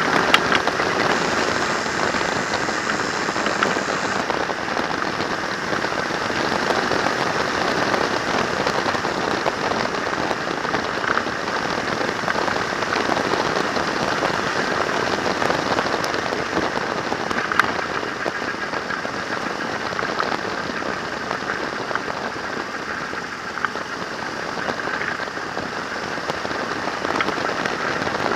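Steady rushing wind and road noise on a handlebar-mounted camera riding a trike at speed, with a few light clicks scattered through it. The trike's engine is not picked out.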